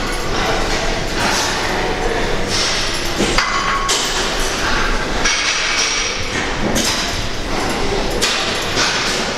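Busy weight-room din with repeated metallic knocks and clanks of gym weights and equipment, several times a second at points.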